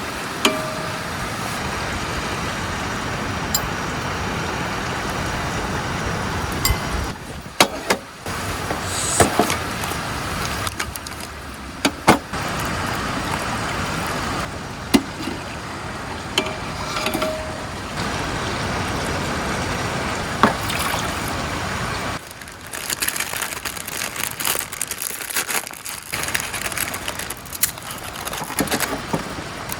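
Steady rushing of a river, cut into several stretches, with scattered knocks and clicks.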